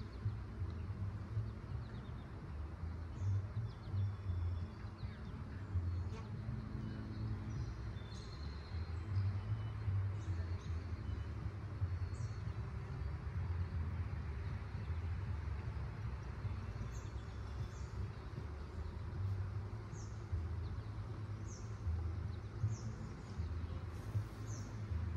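Honeybees buzzing around an opened hive, over a low fluctuating rumble. A bird gives short, high, falling chirps, repeating about once a second in the last third.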